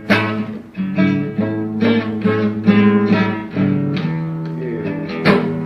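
Guitar playing an instrumental blues passage, picked notes over a low bass line, with a strummed chord at the start and another near the end.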